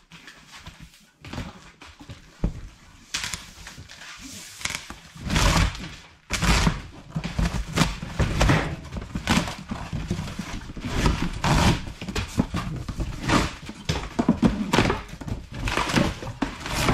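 Unboxing: cardboard and packing material rustling and scraping, with frequent thunks and knocks as heavy metal stand parts are lifted out and set down. It gets busier and louder about five seconds in.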